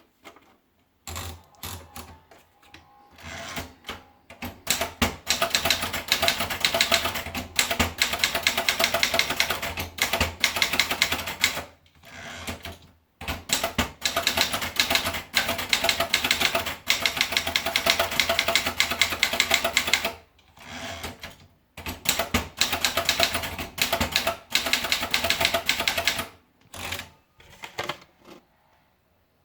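Remington Sperry Rand typewriter being typed on: long runs of rapid key strikes broken by two short pauses, thinning to a few last strikes near the end.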